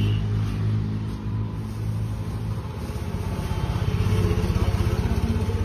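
An engine running with a low, steady hum and a fast, even pulse, getting a little louder about two thirds of the way in.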